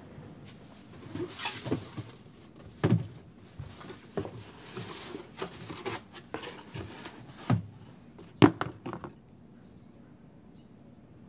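Several irregular knocks and thuds over rustling, the loudest about eight and a half seconds in, then much quieter near the end.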